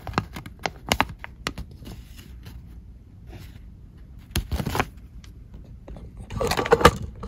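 Handling noise: scattered small clicks and light scraping of toy packaging and paper being handled, with a louder burst of rustling about six and a half seconds in.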